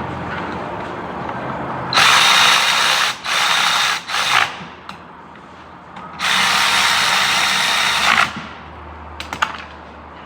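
Power tool driving fasteners in bursts: one run of about a second, two short pulls, then after a pause a longer run of about two seconds.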